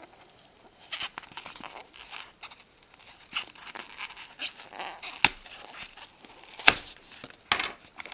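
A knife blade slicing through packing tape and scraping along a polystyrene foam box, with squeaky rubbing of the foam. Two sharp clicks come in the second half, the second the loudest.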